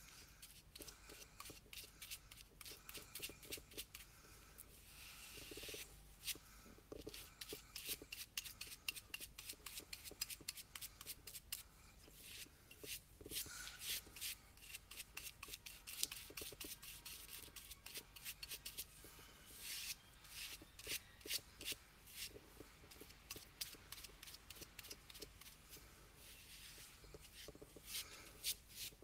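Small paintbrush stroking and dabbing copper paint onto a turned wooden vase: faint, quick scratchy brush strokes, several a second, with short pauses while the brush is reloaded.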